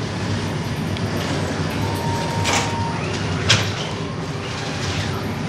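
Flatbread bakery machinery running with a steady, even drone and low hum. Two sharp clicks come about a second apart in the middle.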